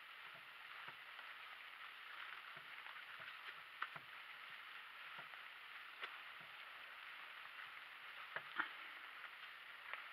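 Donkey cart rolling over a rough off-road track: a faint, steady gritty hiss of wheels on the ground, with scattered light knocks from hooves and cart. The knocks are a little stronger about four seconds in and again near eight and a half seconds.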